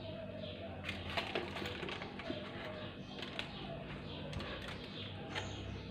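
Aluminium foil being unwrapped by hand, crinkling with scattered sharp crackles.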